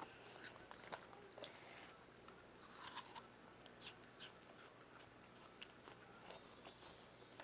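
Near silence: room tone with a few faint scattered clicks and soft rustles.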